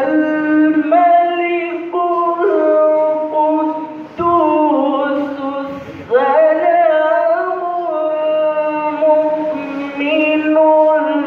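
A young male voice reciting the Quran in a melodic chant over a microphone, holding long notes with ornamented turns and pausing briefly for breath about four and six seconds in.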